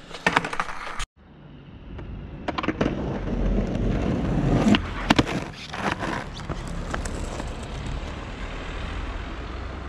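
Skateboard wheels rolling on rough asphalt, growing louder over the first few seconds, with several sharp clacks of the board's tail and wheels hitting the ground. There are a few more clacks near the start.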